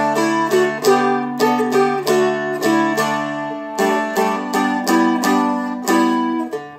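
Seagull Merlin, a four-string dulcimer-style acoustic instrument, flatpicked: melody notes and chords over ringing drone strings, about three picks a second, with a chord change a little under four seconds in.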